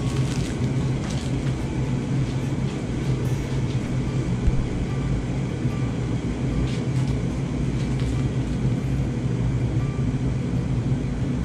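Electric kettle heating water, running steadily with a low rumble.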